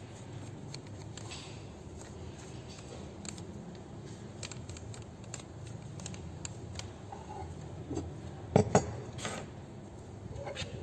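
Toothbrush bristles scrubbing around an angle grinder's spindle and flange: faint scratching with light clicks. About eight and a half seconds in come two sharp knocks of metal parts set down on a wooden table, then a few lighter knocks.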